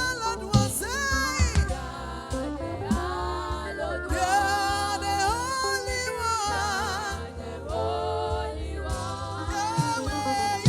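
Gospel worship music: a singer's wordless vocal runs, gliding and wavering in pitch with vibrato, over a band with steady bass and drum hits.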